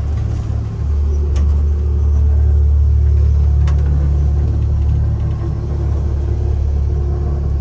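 Steady low rumble of a vehicle running, with two faint clicks.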